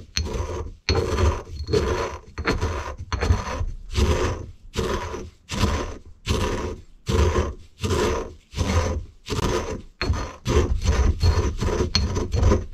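Eggshells being crushed with a pestle in a stone mortar: repeated grinding, scraping strokes, about two a second, coming quicker near the end.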